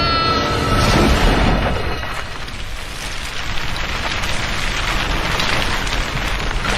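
Film sound effects of fast skiing over the icy roof of a train car: a dense, crackling hiss and scrape of sliding, with a short rising pitched sound at the very start.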